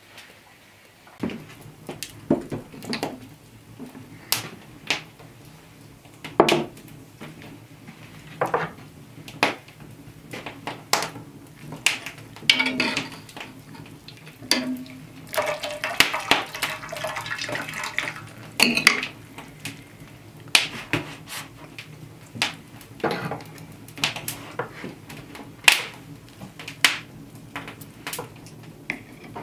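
Metal clinks and knocks of an iron hook and pot, and a cloth-wrapped pudding set into a ceramic bowl. Midway there is a stretch of dripping and splashing water as the wet pudding bag is lifted out of the pot.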